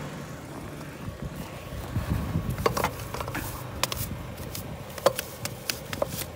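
Scattered sharp knocks and scrapes from about two and a half seconds in, over a low steady rumble: packed snow, frozen to ice, being knocked and scraped out of a car's cast alloy wheels. The trapped snow had thrown the wheels out of balance and set the car shaking.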